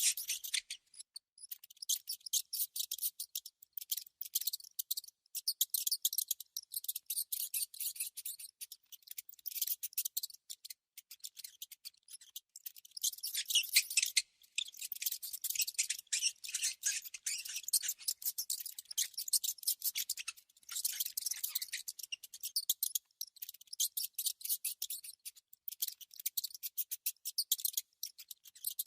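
Mouse sound effect: rapid, dry, high-pitched scratching and clicking in irregular runs, broken by short pauses.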